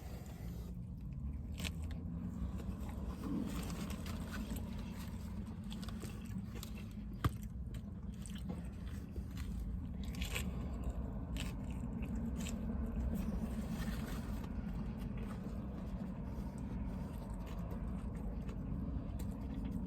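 A person biting into and chewing a grilled chicken wrap, with scattered short noises over a steady low hum. There is one sharp click about seven seconds in.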